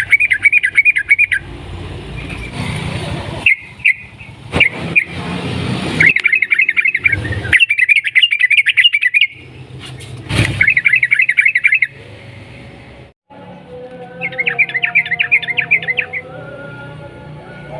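Yellow-vented bulbul (trucukan) singing in bursts of fast, rolling chattering notes, about five phrases with sharp breaks and a few clicks between them. Some faint steady tones run underneath near the end.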